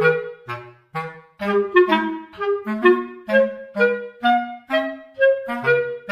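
Playful background music: a clarinet-like woodwind melody in short, separate notes over a bouncing bass line.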